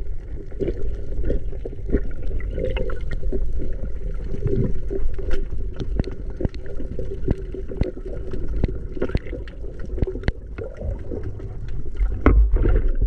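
Underwater sound picked up through a diver's camera housing: a constant low rumble of moving water with a steady hum and many scattered sharp clicks and knocks.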